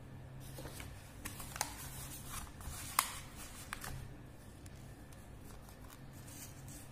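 Hands handling paper: a lined notepad rustling and sliding into place on a clipboard, with a few taps and a sharp click about three seconds in, then quieter handling as the pen is uncapped.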